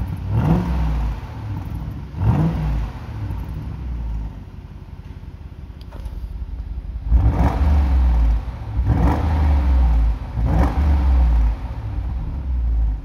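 Audi SQ7 4.0 TFSI twin-turbo V8 revved in short blips while standing, heard from the exhaust tips, five throttle blips in all. The first two are lighter, with the exhaust flaps under standard control. The last three are louder with a heavier low rumble, with the flaps held open by the CB2 flap controller.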